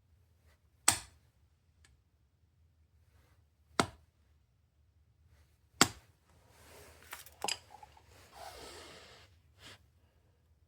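Three sharp metal taps a couple of seconds apart, hammer blows on a punch against the air hammer's parts. They are followed by a few seconds of scraping and rattling handling noise with a couple of clicks.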